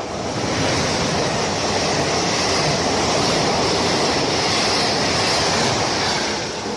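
Trenitalia E.464 electric locomotive and its passenger coaches passing close at speed. A steady rush of wheel and air noise builds in the first second and fades near the end.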